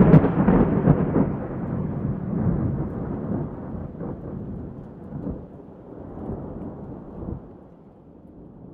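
Rolling thunder: a loud crack at the start, then a long low rumble that slowly fades away.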